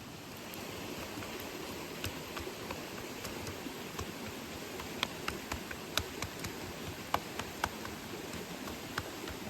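Steady rain and riverside water noise, with scattered sharp ticks and pops through it.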